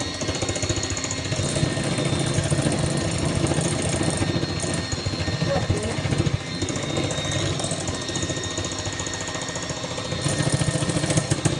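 Electric hand mixer running steadily, its beaters whirring in the bowl with a rapid, even chatter.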